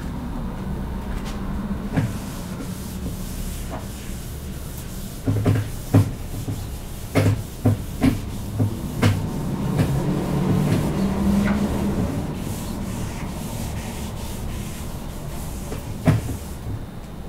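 A whiteboard eraser wiped across a whiteboard, rubbing steadily, with a run of sharp knocks against the board between about five and nine seconds in and one more near the end.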